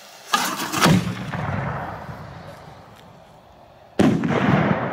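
Two booms from aerial firework shells about three and a half seconds apart: the first a sharp blast with a few quick cracks, the second a single sharp report. Each is followed by a long rolling echo.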